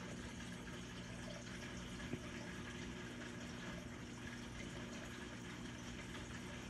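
Steady outdoor background hiss with a faint low hum, and one brief click about two seconds in.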